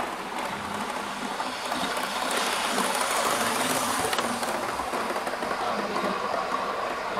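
Model train running on the layout's track, its motor and wheels growing louder as it passes close by between about two and four and a half seconds in.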